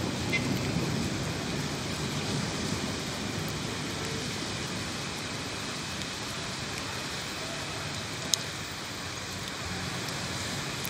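Heavy rain falling steadily as an even hiss, with one sharp click about eight seconds in.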